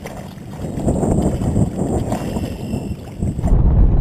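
Water splashing and lapping around a small boat, with wind buffeting the microphone. Near the end the wind rumble becomes heavier and deeper.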